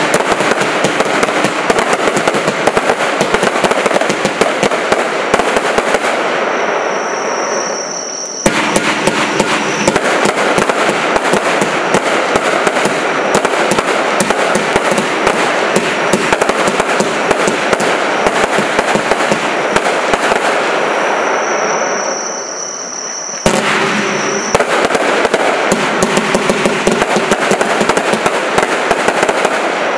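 Lesli Signature Show 216-shot, 25 mm compound firework battery firing: a dense, rapid stream of launches and bursting bangs with crackle. It eases off twice for a couple of seconds, with a thin high steady tone in the lulls, before the volleys start again sharply.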